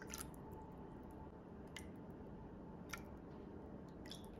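Water from a small glass measuring cup splashing into a bowl of sauce, ending just after the start, then a few separate light clicks and taps of a spoon and bottles as seasonings are measured into the bowl.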